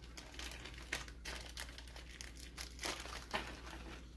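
Crinkling of a small plastic bag of rack screws being handled and rummaged, with irregular small crackles and clicks.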